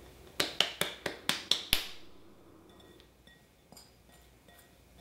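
Glass bowl knocked seven times in quick succession, each knock ringing briefly, to shake wet barley grain out into a bowl of flour. A few faint glass clinks follow.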